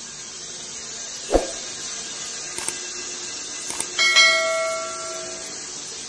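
A sharp knock about a second in, then a piece of metal struck hard about four seconds in, clanging and ringing like a bell for about a second and a half, over a steady background noise.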